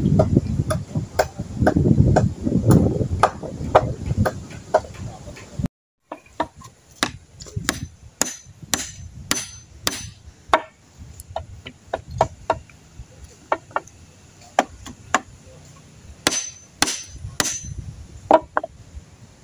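Claw hammer striking timber: a long run of sharp blows, sometimes in quick clusters of about three a second. Wind buffets the microphone under the blows for the first few seconds, until a sudden cut.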